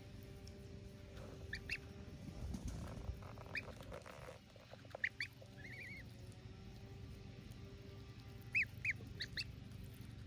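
Goslings peeping: a few short, high-pitched calls scattered through, with two close together near the end.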